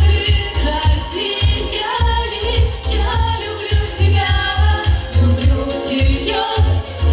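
Two women singing a pop song into microphones over amplified music with a steady, heavy bass beat.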